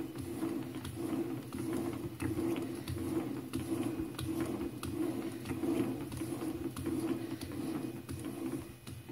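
Belt-driven metal lathe, a Holbrook C8, running with a steady hum, a rapidly fluctuating rattle and scattered clicks, cutting off near the end.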